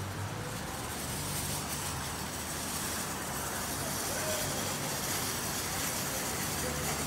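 Street noise with the steady low hum of a motor vehicle engine running.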